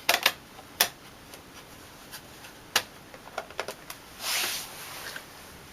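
Plastic hard-drive cover panel of a computer being fitted back into place: a series of sharp plastic clicks and taps, then a brief scraping rub about four seconds in.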